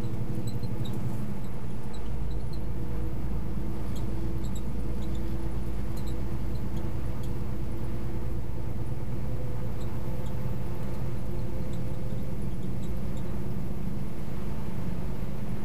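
Steady drone inside a semi truck's cab as it drives on a slushy highway: the diesel engine and tires on the wet road make an even, unchanging rumble with a steady hum, and faint high ticks are scattered through it.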